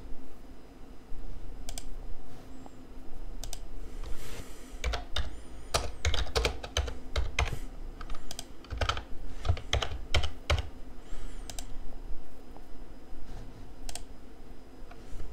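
Computer keyboard typing: irregular runs of key clicks, busiest through the middle, over a low steady hum.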